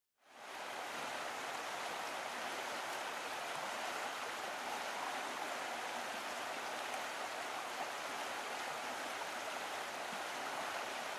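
Steady rushing water ambience, like a flowing stream, fading in over the first half second and then holding even.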